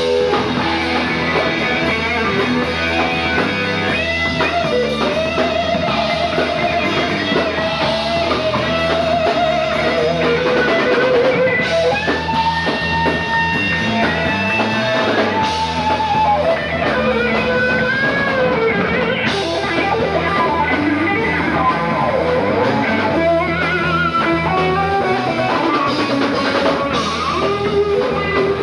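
Live rock band led by a Stratocaster-style electric guitar playing sustained lead lines with string bends over a drum kit.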